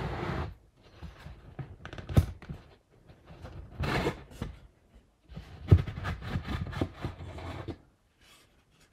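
Plywood rocket fins being worked out of their slots by hand: wood rubbing and scraping against wood, with a few light knocks between stretches of scraping.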